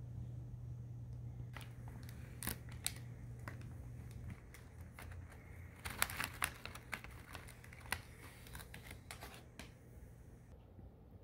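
Snack bag of pretzels crinkling and rustling in scattered small crackles as a hand reaches in and rummages for pretzels, with the thickest rustling about six seconds in. A faint low hum underneath drops away about four seconds in.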